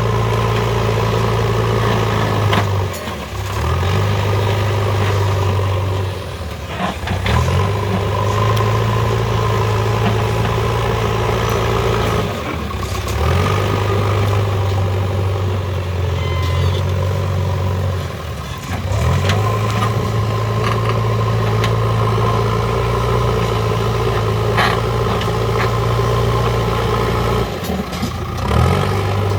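JCB 3DX backhoe loader's diesel engine running steadily while working soil. About four times it dips briefly and revs back up.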